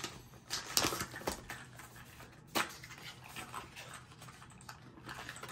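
Plastic shrink-wrap around a stack of small cardboard boxes of 5.56 ammunition being torn open and handled, with crinkling and scattered light clicks and knocks: several in the first second or so and a sharper one about two and a half seconds in.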